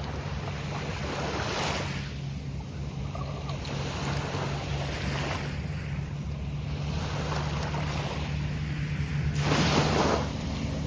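Gulf of Mexico surf breaking and washing up the beach in repeated surges, the biggest wave near the end, over a steady low hum.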